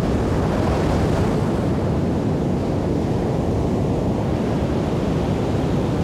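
Ocean surf rolling and breaking, mixed with wind: a deep, steady rush.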